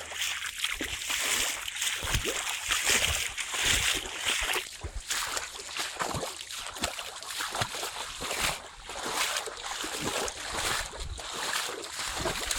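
Boots wading through shallow swamp water and mud, an irregular run of sloshing, splashing steps.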